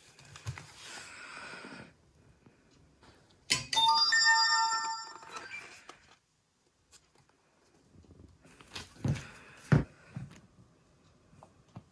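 Electronic start-up chime from a DJI Mini 3 Pro drone and its remote controller being powered on: a short melody of several ringing tones, starting about three and a half seconds in and lasting about two seconds. Near the end come two dull thumps of handling, about a second apart.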